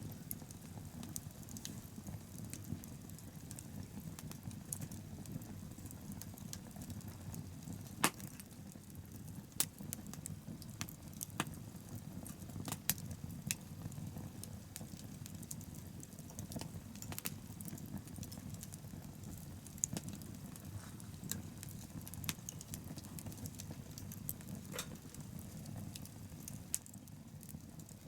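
Wood bonfire burning: a steady low rumble of flames with scattered sharp crackles and pops, the loudest about eight seconds in.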